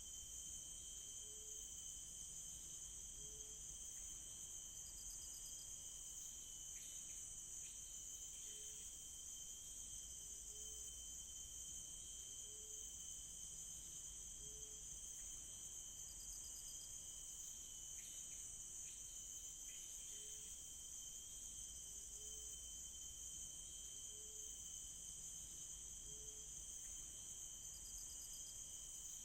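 Night chorus of crickets and other insects: a steady high-pitched buzzing with a second steady thin whine under it, short trills every few seconds, and a low short note repeating every second or two.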